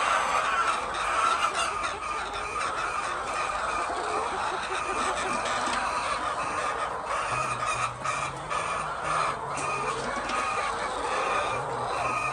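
A flock of laying hens clucking together in a steady, dense din.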